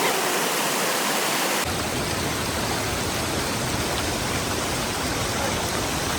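Steady rush of flowing river water, an even noise with no distinct events. About two seconds in the sound changes abruptly, becoming fuller and deeper.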